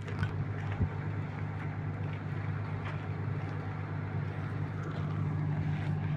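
A backhoe's diesel engine running steadily at a constant speed, a low even hum.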